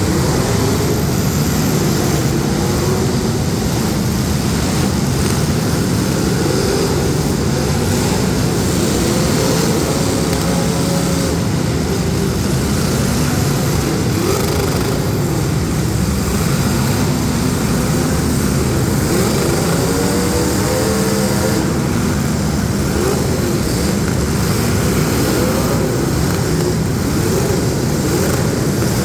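Several street-stock demolition derby car engines running and revving together, loud and continuous, their pitches rising and falling over one another.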